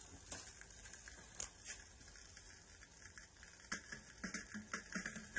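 Faint hiss with scattered clicks and pops from the stylus of a 1960s Rigonda valve radio-gram riding the lead-in groove of a 45 rpm single, heard through the set's own speaker. The pops come more often in the last second and a half.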